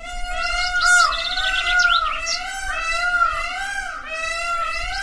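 Peafowl calling, several at once: a dense, unbroken run of short arched calls, about two a second, overlapping with higher quick sweeping calls.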